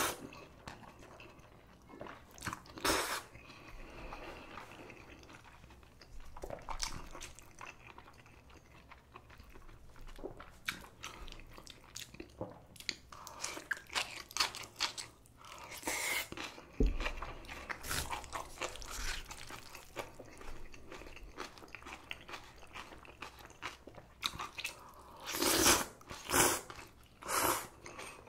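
Close-miked eating of spicy cold noodles and kimchi: irregular chewing and crunching with small wet clicks, and a few louder bursts, three of them close together near the end.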